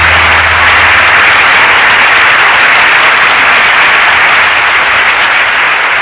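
Audience applause, loud and steady, as a held Hammond organ chord ends at the very start.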